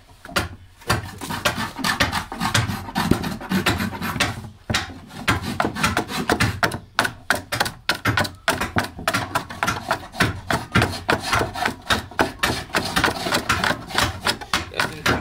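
Steel adze (keser) chopping into the hollow of a carved mulberry-wood saz bowl, a rapid, steady run of sharp wooden chops several a second as chips are cut from the inside.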